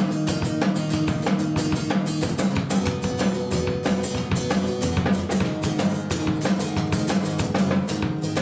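Guitar and drum kit playing a song together, the drums keeping a steady beat of kick and rimshot strokes under the guitar's chords.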